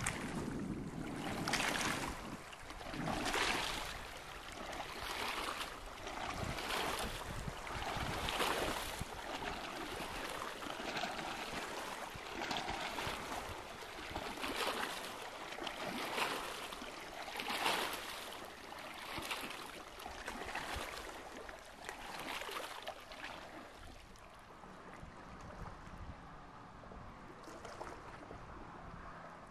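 Small waves lapping and splashing against a rocky shoreline, a splash about every second, settling to a quieter wash of water near the end.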